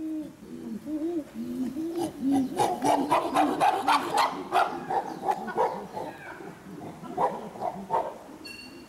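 Chimpanzee calling: a rhythmic run of short hoots, about three a second, that builds about two seconds in to a louder, harsher stretch of calls lasting two or three seconds, then eases back into hoots.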